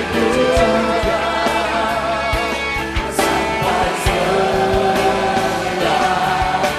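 Live worship music: a band with drums playing while singers hold long notes.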